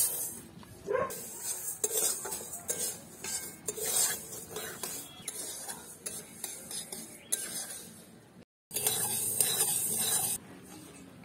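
Metal spatula scraping and stirring dry split moong dal as it roasts in a dry iron kadai, in short strokes. Near the end, after a brief cut, a loud rushing hiss lasts about a second and a half.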